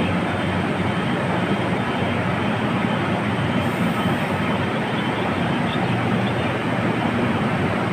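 KTM Komuter electric commuter train running with a steady, even rail noise.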